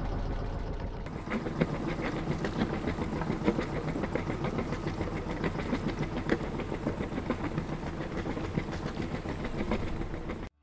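Single-cylinder Volvo MD1 inboard diesel running, a steady rhythmic chugging clatter of about five beats a second. The sound shifts about a second in and cuts off suddenly near the end.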